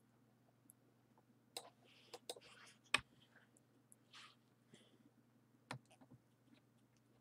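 Scattered clicks from a computer mouse, about six sharp ones with the loudest about three seconds in, with a few soft rustles between them over a faint steady low hum.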